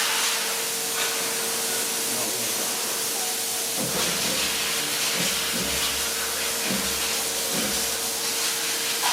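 Steady hiss with a constant machine hum; a low rumble comes in about four seconds in.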